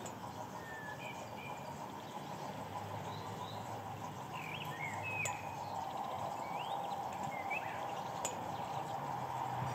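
Small birds chirping, a handful of short quick calls, over a steady outdoor hum that grows a little louder in the second half, with two sharp clicks.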